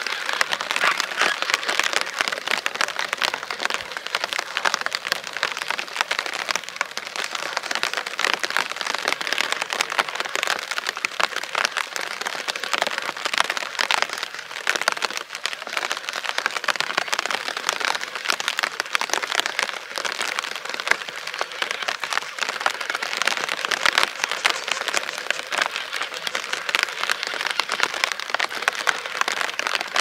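Steady rain falling, a dense patter of many fine drops.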